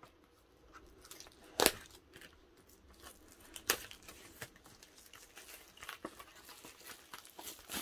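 Clear plastic shrink wrap being torn and peeled off a large poster book, crinkling. There are two sharp snaps, the louder about two seconds in and another near four seconds.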